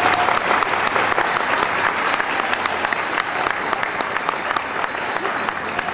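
Audience applauding, gradually dying down.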